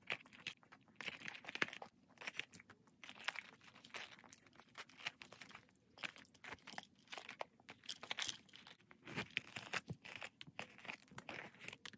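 Faint handling sounds of small items, among them a metal tube, being pushed into a small zippered canvas key pouch: irregular rustling with many light clicks and taps.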